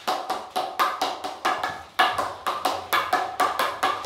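Princess SGX carbon field hockey stick tapping a hockey ball from side to side in a fast dribble on artificial turf. It makes a quick run of sharp knocks, about four or five a second, each with a short ringing tone.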